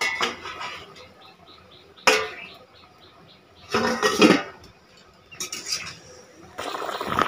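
Steel pot lid lifted off a steaming cooking pot and set down, a few metal clanks and clatters, the loudest about four seconds in. Near the end, a metal ladle stirs in the pot of boiling curry.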